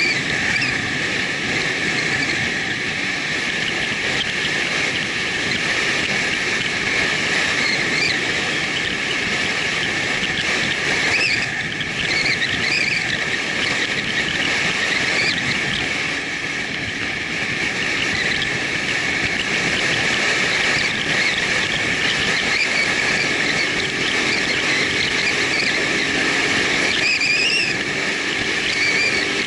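Steady wind rush and road noise on a moving motorcycle's camera, with a faint low engine hum coming in near the end.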